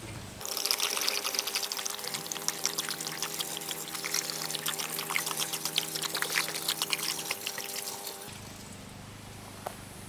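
Water pouring from an upended 5-gallon plastic water jug into the tub of a top-load washing machine; it starts about half a second in and stops a little after eight seconds in.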